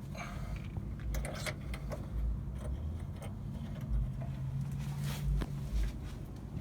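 Scattered small clicks, clinks and rustles of hands and tools working a fuel line fitting at the tank's sending unit, over a steady low hum.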